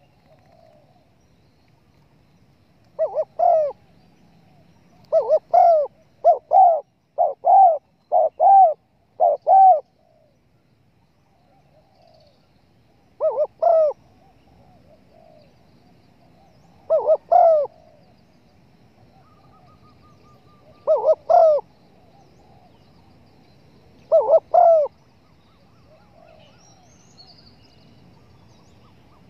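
Spotted dove cooing in short phrases: three coos, then a run of six, then groups of two or three coos every few seconds.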